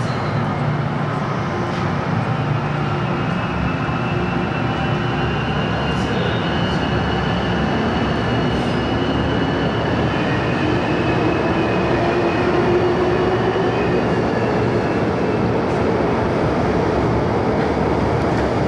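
MTR Island Line M-Train running through the underground station without stopping, heard behind glass platform screen doors: a steady rumble of wheels and running gear with a whine that shifts in pitch about halfway through.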